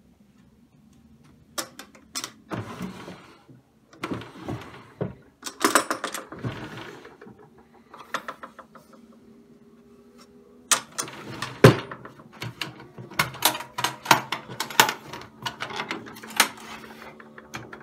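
Wooden drawers of a handmade dovetailed toolchest sliding open and shut, with knocks, clicks and the clatter of the hand tools stored inside. The sounds come in two busy spells, the second starting about eleven seconds in.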